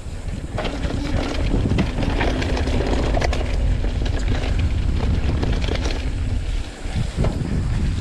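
Mountain bike ridden fast along a dirt and leaf-litter trail: heavy wind buffeting on the camera microphone, with tyres rolling over the ground and a stream of rattles and clicks from the bike over bumps.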